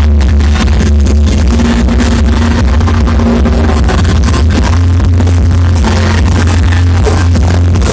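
Loud electronic dance music with heavy, dominant bass, played through a large sound system.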